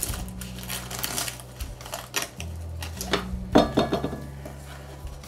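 Knife cutting through the crisp baked filo crust of a strudel, the pastry crackling in a run of irregular crunches, the loudest about three and a half seconds in.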